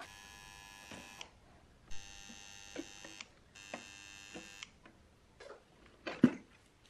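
Three short bursts of a high electric whine, each about a second long, then one loud clunk near the end as a circuit board is pulled out of the power amplifier's metal chassis.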